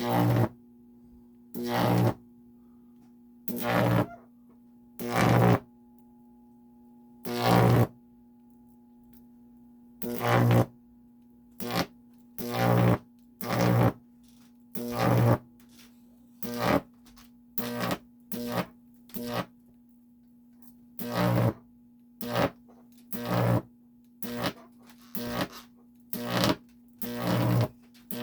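Repeated buzzing high-voltage arcs from a stack of two microwave oven transformers, each arc lasting under a second, coming every second or two and getting shorter and more frequent in the second half. A steady transformer hum runs beneath them.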